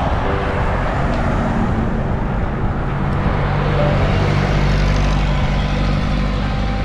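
Road traffic passing close by, a steady rumble of motor vehicles, with one vehicle's engine growing louder in the second half.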